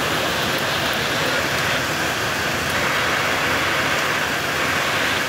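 Heavy rain falling steadily: a continuous, even hiss with no breaks.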